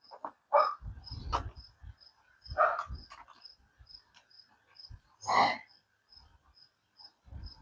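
A cricket chirping steadily at a high pitch, about two to three chirps a second, under intermittent knocks and clatter from hands and tools working on an e-bike, the loudest clatter about five and a half seconds in.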